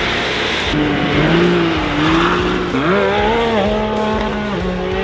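Can-Am side-by-side UTV engine revving hard under throttle, its pitch climbing about three seconds in and then holding high, over the hiss of spinning tyres and sprayed dirt.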